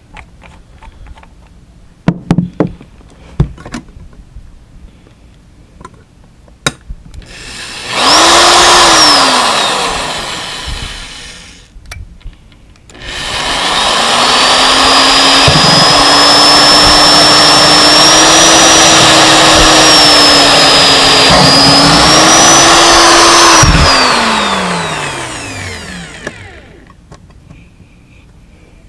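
Handheld electric power tool run twice: a short burst of about three seconds, then a longer run of about ten seconds. Each time the motor whines up to speed and winds down slowly once released. A few sharp clicks of handling come before.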